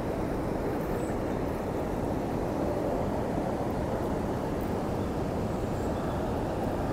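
Steady rushing noise of water pouring over a large river weir, running high and noisier than usual after heavy rain.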